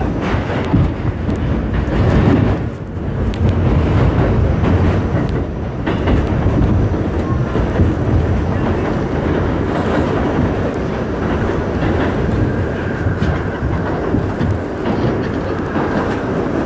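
Loud rumble and rattle of a New York City subway train running at speed through the tunnel, heard from inside the car, with the clatter of wheels over the track. A faint high whine comes in about three-quarters of the way through.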